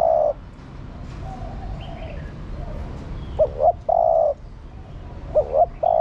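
Spotted dove cooing: a phrase of two short notes followed by a longer held note, repeated about every two seconds.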